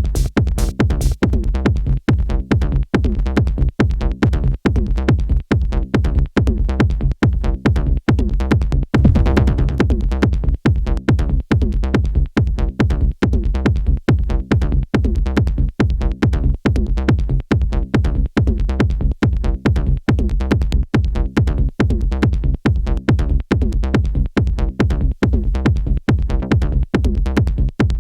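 Techno-style electronic music played live on hardware synthesizers and a groovebox: a steady, fast drum-machine beat over a heavy low end, with a brighter swell about nine seconds in.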